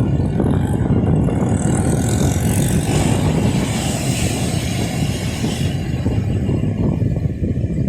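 Seaside street ambience: a steady low rumble of surf and traffic, with a hiss that swells and fades between about two and six seconds in.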